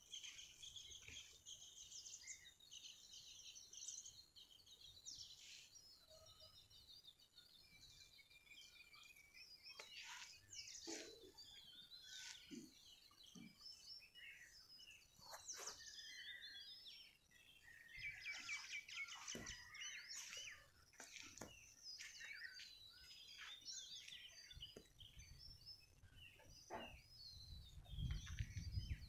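Faint outdoor birdsong: many small birds chirping and calling over one another in short, quick notes, busiest about two-thirds of the way through. A low rumble rises near the end.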